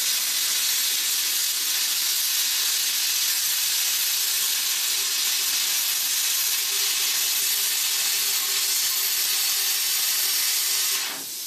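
Handheld plasma cutter cutting through the steel wall of an air compressor tank: a steady, loud hiss of the arc and air stream that cuts off near the end as the torch stops.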